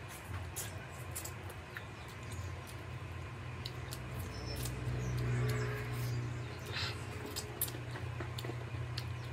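Close-miked eating sounds: chewing and wet lip-smacking clicks from a mouthful of rice and curry, scattered irregularly throughout. Underneath is a steady low hum, which swells into a louder low hum about five seconds in.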